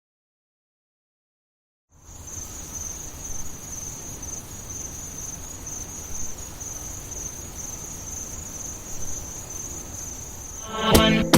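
Complete silence for about two seconds, then a steady high-pitched chirring of insects over a faint low hum. Music with a beat starts near the end.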